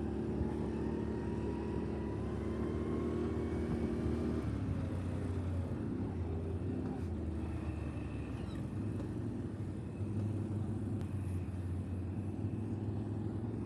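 ATV engines running steadily.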